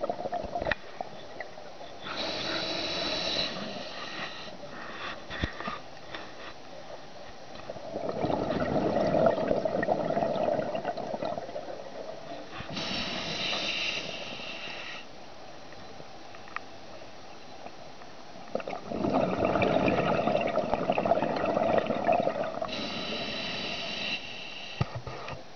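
Scuba diver breathing through a regulator, recorded underwater: short hissing inhales through the demand valve, three of them about ten seconds apart, and between them two longer, louder rumbles of exhaled bubbles.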